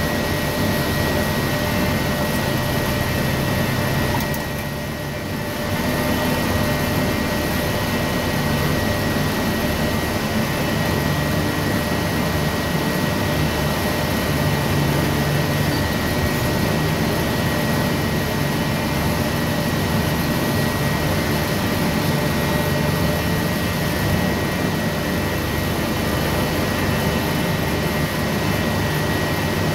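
Heavy forklift's diesel engine running steadily, heard from inside the cab, with a steady high whine over it; the noise drops briefly for about a second some four seconds in.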